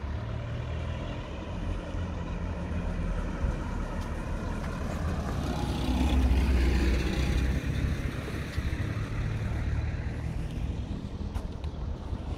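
Road traffic going by, with one vehicle passing loudest about six seconds in and fading after, over a steady low rumble.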